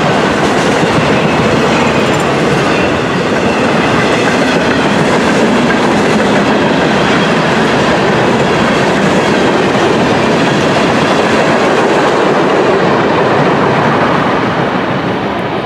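Freight train cars rolling past close by: steady noise of steel wheels on rail, beginning to fade near the end as the last car goes by.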